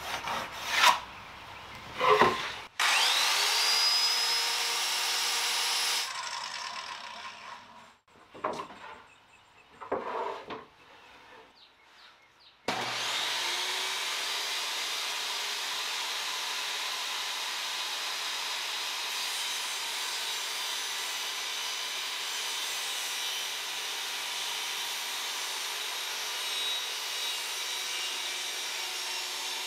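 A power saw starts with a rising whine and runs for about three seconds before winding down, followed by a few knocks and handling sounds. From about 13 seconds in, a table saw runs steadily while a sheet of plywood is pushed through it.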